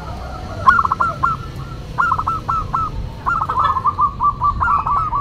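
Zebra dove (perkutut) cooing: three runs of quick staccato notes, the last run the longest.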